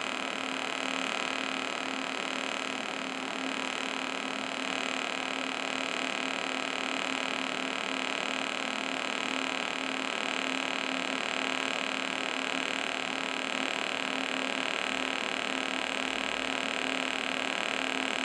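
TIG welding arc from an Everlast Powertig 200DX on thin mild-steel tube, running in pulse mode at 33 pulses per second (33% on time, 33% background current), which gives the arc a steady buzzing.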